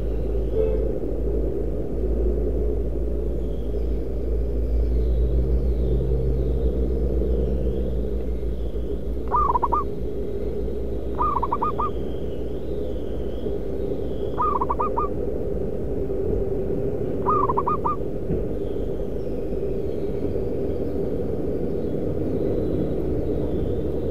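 Zebra dove (perkutut) cooing: four short bursts of quick notes a few seconds apart, over a steady low rumble.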